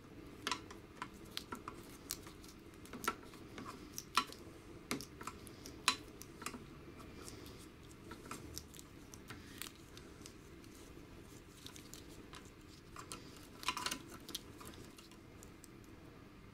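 Scattered small clicks and light knocks of a fuel tap being taken apart by hand, with a short cluster of clicks near the end. The tap no longer closes, and it is being opened up to find the fault.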